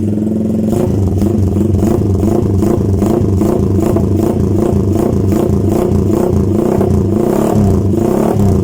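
Motorcycle running through an aftermarket SC Project GP-type canister exhaust, revved again and again to about a quarter throttle. The pitch rises and falls with each blip. The exhaust is loud and sharp-edged.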